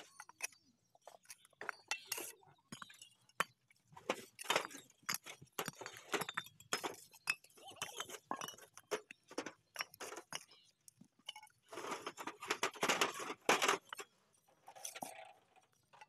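Bricklaying by hand: steel trowels scraping cement mortar and tapping fired clay bricks into place, an irregular run of short clinks and scrapes, busiest about four to seven seconds in and again near the end.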